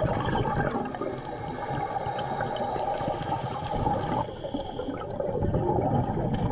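A diver's underwater breathing: exhaled air bubbling and gurgling past the microphone, easing off about four seconds in.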